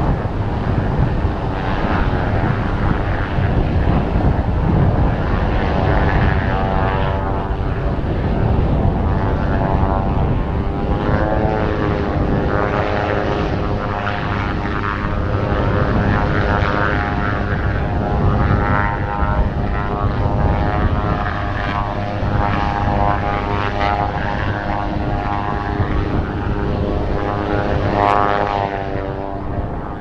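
Fuji T-7 trainer's turboprop engine and propeller running at ground idle: a steady whining hum whose pitch wavers now and then. Heavy wind rumble buffets the microphone underneath.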